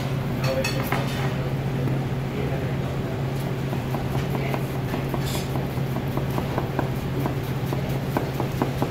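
A 245mm W2 carbon-steel honyaki gyuto slicing through an onion, the blade knocking lightly on the cutting board in a quick, even run of taps that starts a few seconds in. A steady low hum lies underneath.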